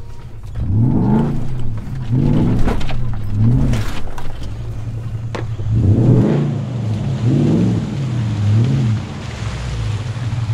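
Toyota Land Cruiser 100-series V8 revving up and falling back about six times as it works through a muddy rut.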